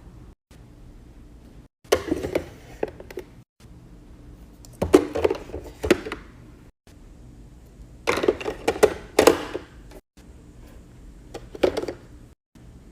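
Handling sounds of containers and food items being moved and set down: clusters of knocks and clicks in four short bursts, with quieter stretches between them.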